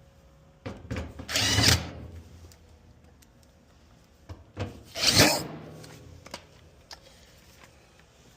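Power drill driving screws back into a dryer cabinet: two short runs a few seconds apart, each about a second long.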